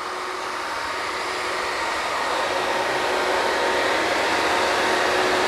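Working drilling rig machinery running: a steady mechanical din with a few held tones, growing steadily louder.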